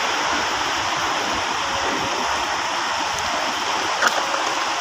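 Muddy floodwater rushing steadily through a flooded underpass, a constant hiss of flowing water, with a brief click about four seconds in.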